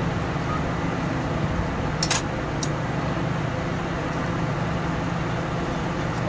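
Steady street ambience of passing traffic with a low hum, and two short sharp clicks about two seconds in.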